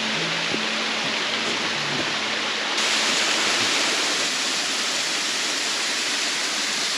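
Steady hiss of rushing water from a mountain stream. Faint background music underneath fades out after about two and a half seconds, and just after that the water noise steps up suddenly and stays louder.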